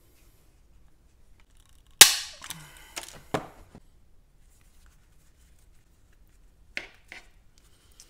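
Hand pop-rivet tool setting a rivet through leather: one loud, sharp snap as the rivet's mandrel breaks off, followed by a few lighter clicks and two more near the end.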